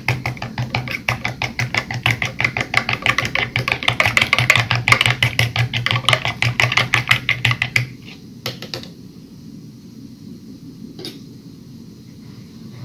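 Spoon stirring coffee fast in a Turkish coffee pot (cezve), clinking against the metal pot about seven times a second. It stops abruptly about eight seconds in, followed by a few single clinks.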